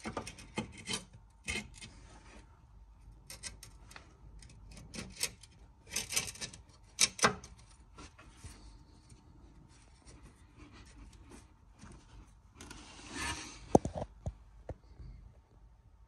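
Intermittent scraping and rubbing of metal with scattered clicks, then a denser stretch of scraping and one sharp knock near the end, as a new engine mount is handled and fitted against the car's subframe.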